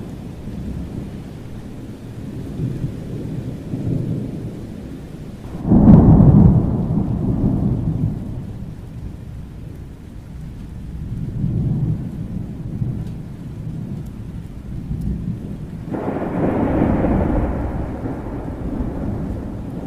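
Thunderstorm: low thunder rumbling continuously over steady rain. A loud peal of thunder breaks in suddenly about six seconds in and fades over a couple of seconds, and another rolls in near sixteen seconds.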